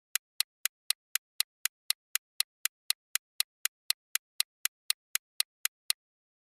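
Countdown timer sound effect: sharp, even clock-like ticks, about four a second, that stop abruptly near the end.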